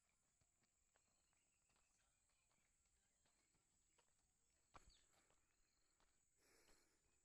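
Near silence, with faint scattered ticks and one soft knock about five seconds in.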